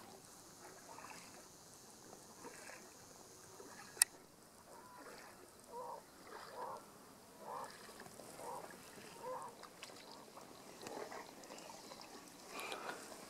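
Faint splashing of kayak paddle blades dipping into calm water, about one stroke a second, with a single sharp click about four seconds in.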